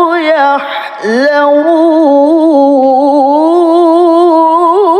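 A man's solo Quran recitation in the melodic tilawah style, drawing out one word in a long, ornamented held note. The voice breaks off briefly about a second in, then goes on, climbs higher around the third second, and wavers in quick ornaments near the end.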